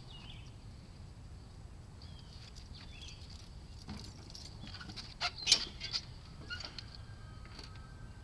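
Birds chirping and calling, with a short cluster of sharp knocks and clicks a little past the middle as a man climbs onto a riding lawn mower that is not yet running.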